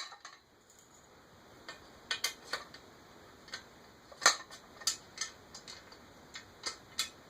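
Irregular light clicks and taps of frame parts being handled and fitted together during assembly, the loudest knock about four seconds in.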